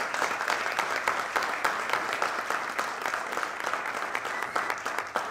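An audience applauding: many hands clapping steadily, the clapping starting to thin out near the end.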